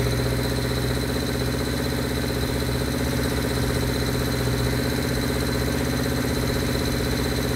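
Vintage Honda air-cooled four-cylinder motorcycle engine running steadily at a held fast idle of about 2,000 rpm. Its carburetors have just been brought into sync, so it runs smoothly and evenly.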